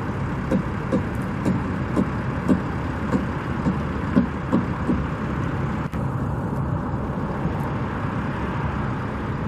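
Steady noise of road traffic, with a few faint knocks.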